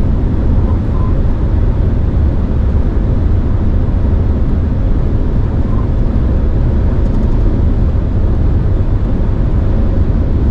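Steady low rumble of road and tyre noise inside a Volvo XC60's cabin at motorway speed, with a slight wind noise over it.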